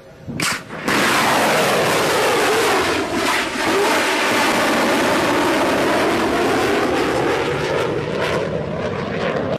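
Loud jet roar that starts abruptly about a second in and runs steadily, with a hollow sweeping tone that falls in pitch and then rises again.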